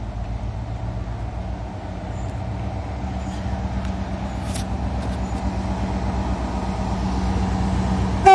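Class 60 diesel locomotive's eight-cylinder Mirrlees engine running with a steady low drone as it approaches, growing slowly louder.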